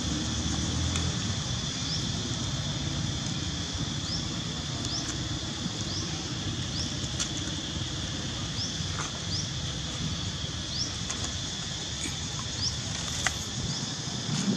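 Outdoor forest ambience: a steady high-pitched drone with short rising chirps about once a second over it, a low rumble underneath, and a few scattered faint clicks.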